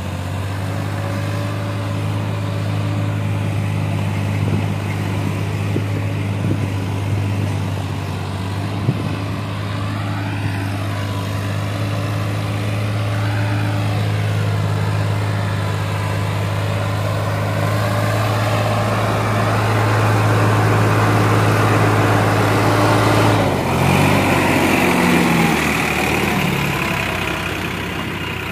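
Sonalika tractor's diesel engine running steadily as it hauls a loaded trolley of soil, growing louder as it comes close; about three-quarters of the way through, the engine note changes.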